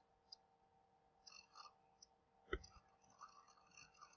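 Near silence: faint room tone, with one short click about two and a half seconds in.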